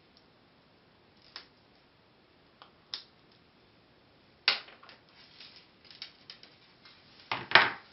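Small flush cutters snipping 18-gauge speaker wire: a few separate sharp snips, the loudest about four and a half seconds in, with light handling rustle of the wire, then a louder double click near the end.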